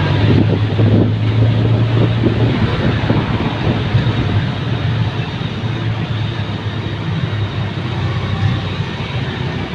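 Tohatsu V50 portable fire pump engine running steadily on a test run, a loud constant drone that eases off slightly after the first couple of seconds.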